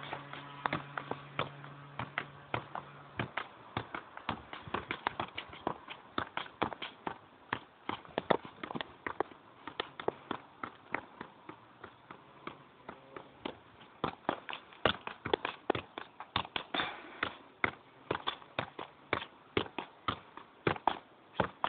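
A football being tapped with the feet and bouncing on concrete while it is juggled and dribbled, a run of quick, uneven taps and thuds, a few a second, mixed with shoe scuffs.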